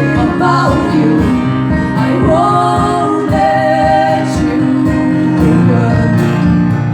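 Live music: acoustic guitar playing under a singing voice that holds long, wavering notes through the middle.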